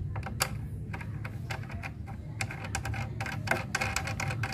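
Metal hardware clicking and rattling as a nut is turned by hand onto a bolt under a children's tricycle's steel seat bracket. The clicks are scattered at first and come in a quick, dense run from about halfway through.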